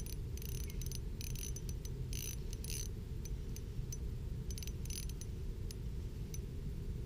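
Pflueger Trion spinning reel being cranked in several short spurts, its gears whirring and clicking, as a fish is reeled up through the ice hole. A steady low rumble runs underneath.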